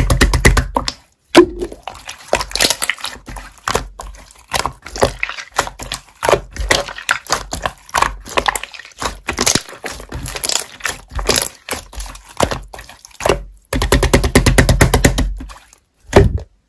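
Slime being squished and pressed by hand close to the microphone: a run of wet clicks, pops and crackles. There are two spells of quick, even pressing strokes, one at the start and one near the end.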